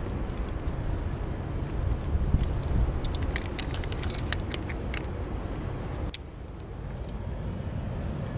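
Steel carabiners and rope-access hardware on a climbing harness clinking and clicking as they are handled and clipped, a flurry of sharp clicks over about two seconds and one more a second later, over a steady low rumble.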